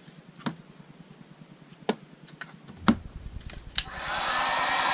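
A few light knocks from the plastic forend being handled and set down, then an electric heat gun clicks on near the end and runs with a steady blowing hiss and a faint whine, heating the plastic forend to widen it.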